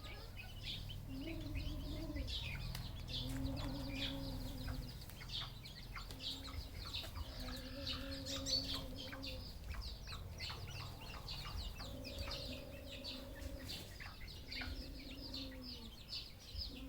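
Red junglefowl (wild chickens) calling: a series of drawn-out low calls, each about a second long, over constant high-pitched chirping.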